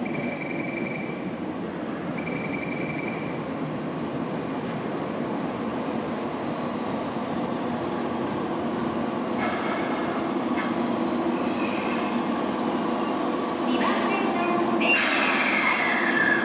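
Toei 10-300R series electric multiple unit pulling into the station, its running noise growing louder as it approaches. High wheel and brake squeal comes in bursts about halfway through and again near the end, with a whine falling in pitch as the train slows to a stop. A short high steady tone sounds twice in the first few seconds.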